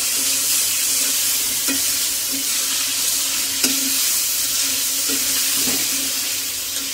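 Fish and vegetable curry frying in oil and turmeric in a metal karai, a steady sizzle, while a spatula stirs the pieces and knocks against the pan a few times.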